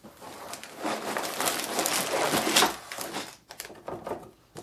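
A cardboard LEGO set box being opened and emptied out: the box flap scraping and the plastic bags of bricks rustling and crinkling as they slide out onto the table. The rustling dies down about three seconds in, leaving a few light knocks.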